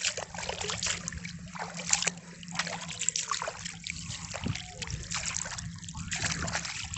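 Shallow sea water splashing and trickling in quick, irregular splashes.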